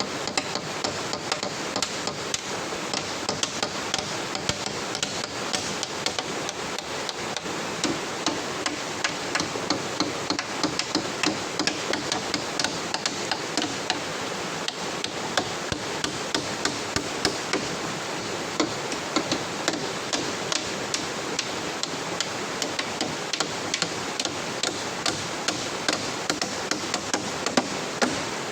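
Repeated sharp knocks of a hand tool striking wood, about two a second and stronger from several seconds in, over a steady rushing hiss.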